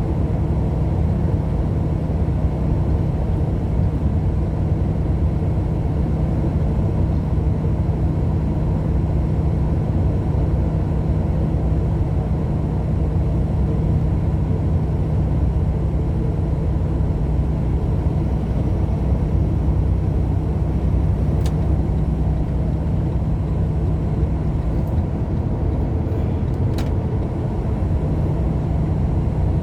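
Car driving steadily at speed: a constant low rumble of engine and tyre noise with a steady hum. Two faint short clicks come late on.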